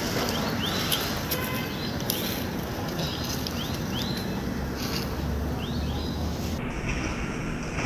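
Short, high rising chirps from an animal, often two close together, repeated every second or so over a steady outdoor background hiss. The hiss suddenly loses its high end about two-thirds of the way through.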